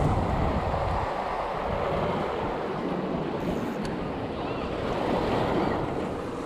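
Sea waves washing and breaking against the rocks of a breakwater, a steady surf wash mixed with wind buffeting the microphone.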